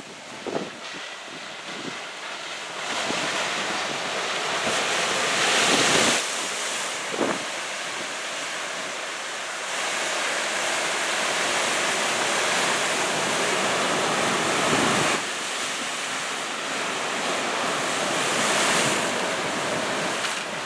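Typhoon swell breaking and washing onto the shore, with wind buffeting the microphone. The surf swells loudest about six seconds in and again near the end.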